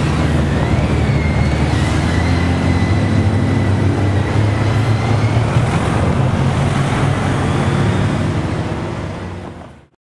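Narrow-gauge steam locomotive working a train, a steady low rumble of exhaust and running gear. A thin high-pitched squeal wavers and then holds for several seconds in the first half. Fades out near the end.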